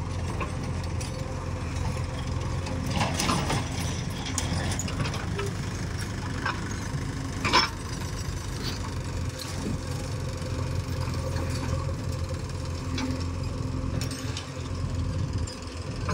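Diesel engine of a JCB backhoe loader running steadily as it digs and loads soil into a tractor trolley. Scattered knocks sound over the engine, the sharpest about halfway through.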